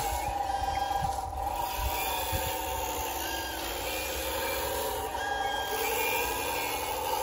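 A 1/14-scale hydraulic RC wheel loader running: a steady electric whine from its motors and hydraulic pump that changes pitch near the end as it works, with short high beeps over it.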